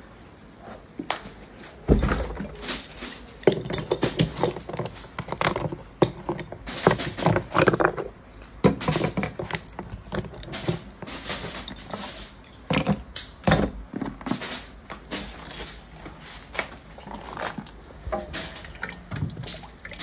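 Irregular clattering: many sharp knocks and clicks at uneven intervals, with louder knocks about two, three and a half and thirteen and a half seconds in.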